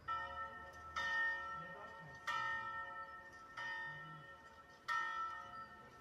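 Recorded bell sound played back when a shape painted in conductive paint is touched: five strikes about one and a quarter seconds apart, each ringing on with several steady tones.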